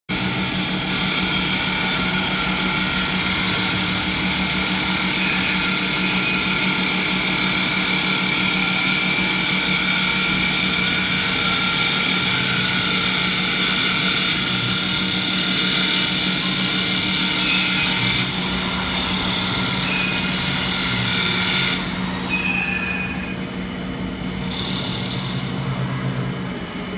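Lathe machining a stick: a steady, loud machine noise with a constant hum and whine under the hiss of the cut. The cutting noise drops off about eighteen seconds in and again a few seconds later, leaving the machine running more quietly.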